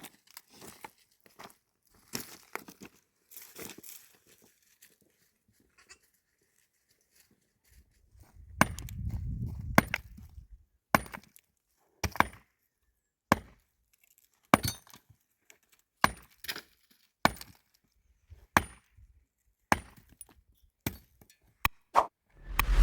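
Hammer driving nails into wood: a steady run of sharp blows, about one a second with a faint ring after each, starting about eight seconds in after some quieter handling clicks.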